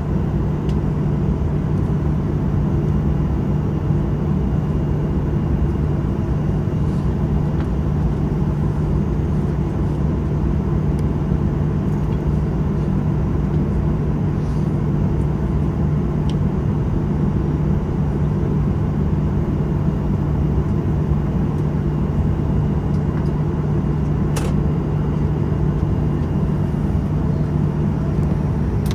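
Steady low drone inside the cabin of a Boeing 737-900ER on the ground after landing, a constant hum from the aircraft's engines and air systems, with one brief faint click late on.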